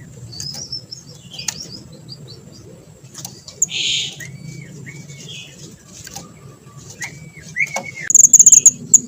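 Small pied bushchat singing: short whistled notes and chirps, a loud harsh note about four seconds in, then near the end a rapid, loud, high-pitched trill.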